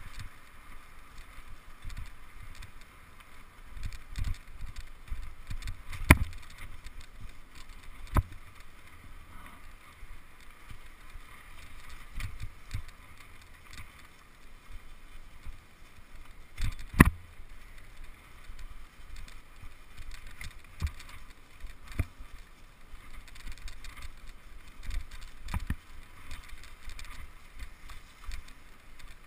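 Handling and rolling noise from a bicycle-mounted action camera riding a leaf-covered dirt trail. A steady hiss runs under uneven low rumbles from the bumps, with two sharp knocks about six seconds in and again near seventeen seconds.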